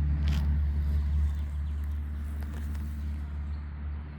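Low, steady engine-like rumble that fades away near the end, with a sharp tick about a third of a second in.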